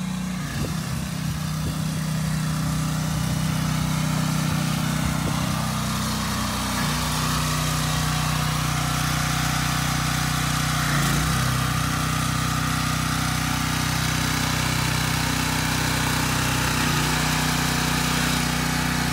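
Gas pressure washer engine running steadily under load, with the hiss of the water spray from the wand; the engine note shifts slightly a couple of times.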